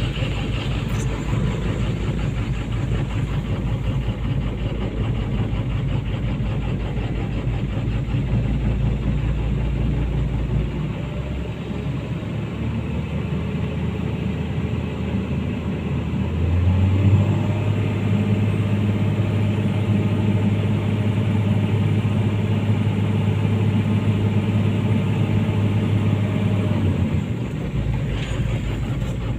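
Komatsu PC200-8 excavator's six-cylinder common-rail diesel engine running steadily, with all cylinders found firing in a cut-out test. The engine note changes about a third of the way in, steps up to a higher, steadier speed a little past halfway, holds, and drops back again near the end.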